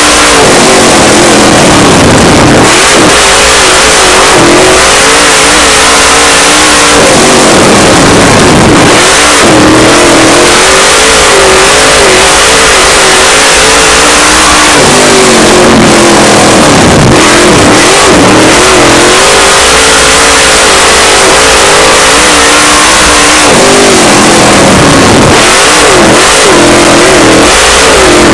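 Dirt late model race car's V8 engine heard from inside the cockpit, very loud, at racing speed. Its pitch climbs and drops again every few seconds as the throttle is opened and eased, lap after lap.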